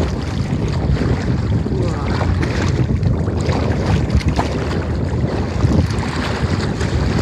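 Strong wind buffeting the microphone in a steady low rumble, with choppy lake waves splashing against the plastic hull of a kayak.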